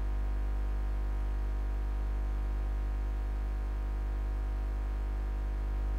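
Steady electrical mains hum: a low, unchanging buzz with many evenly spaced overtones.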